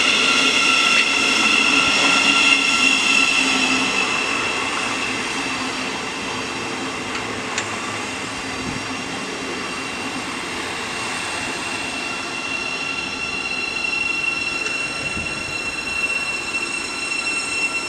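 Siemens Class 700 Desiro City electric multiple unit pulling into the platform at low speed: wheel and running noise under a steady high-pitched whine, loudest in the first few seconds and then settling.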